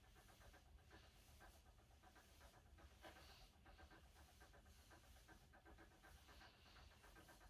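Near silence: faint room tone with a low hum and soft pulses repeating about twice a second.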